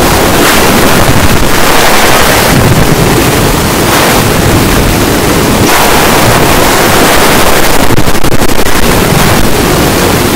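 Very loud, heavily distorted rushing noise with no clear pitch, holding steady with small swells and no break.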